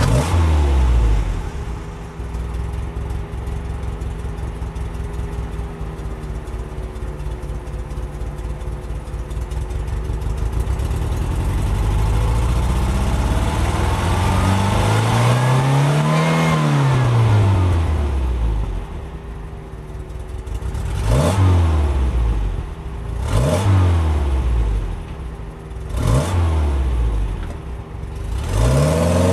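1981 Toyota Corolla's 3TC 1.8-litre four-cylinder engine running through a Dynomax Super Turbo muffler, with an exhaust leak at the flange. It idles steadily, is revved slowly up and back down once near the middle, then is blipped four times in quick, sharp revs near the end.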